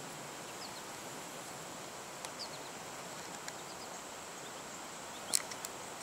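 Faint outdoor background of insects droning steadily at a high pitch, with a few faint high chirps scattered through it and a short sharp clicking sound about five seconds in.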